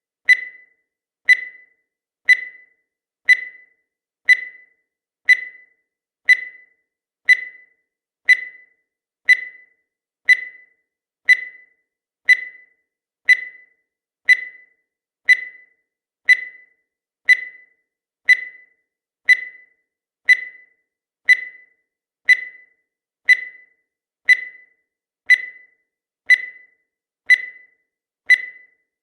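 Countdown timer's electronic beep, one short high-pitched tone each second that quickly dies away, ticking off the seconds.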